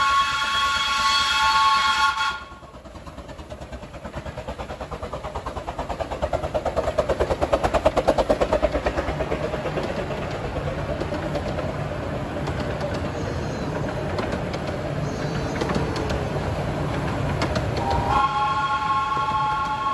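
Steam locomotive whistle sounding a steady chord of several tones, cutting off about two seconds in. Then come the locomotive's rapid exhaust beats, growing louder to a peak and easing to a steady run. Near the end the whistle sounds again, its pitch sliding up briefly as it opens.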